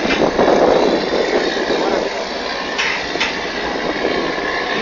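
Steady noise of a motorboat under way at sea: its engine running, with wind and water, and two short sharp knocks about three seconds in.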